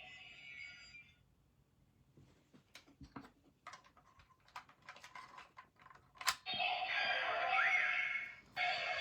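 Ultraman Blazar transformation-bracelet toy playing its electronic effect sounds. A sound effect fades out, then comes a run of small plastic clicks as the toy is operated, a sharp click about six seconds in, and a new electronic effect with a short rising tone that breaks off briefly near the end and starts again.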